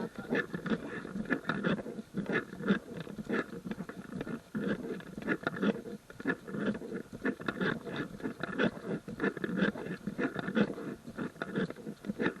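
Close, continuous rustling and scraping, with many small irregular crunches and clicks each second.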